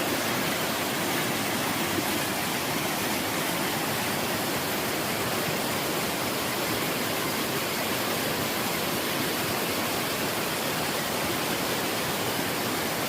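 Five-tier slide waterfall with water rushing steadily down its rock slabs, a dense, unbroken wash of noise that holds the same level throughout.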